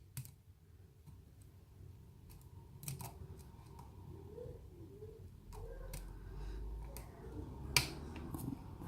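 Lock picking in a challenge lock fitted with spool and serrated pins: a few sharp metallic clicks from the pick and tension wrench working the pins, the loudest near the end.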